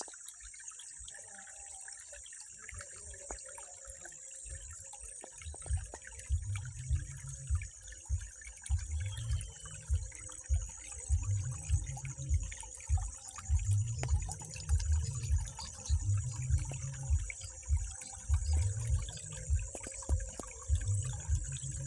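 Flowing water running steadily, with low surges about once a second starting about five seconds in.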